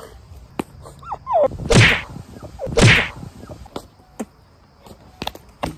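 Two hard slaps about a second apart, followed by several sharp knocks and scuffling as two people grapple over a wooden table.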